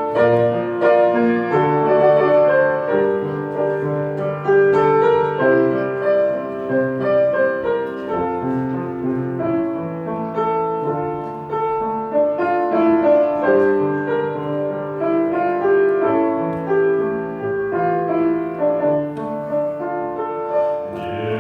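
Piano playing an instrumental interlude of chords and melody between sung verses of a slow song.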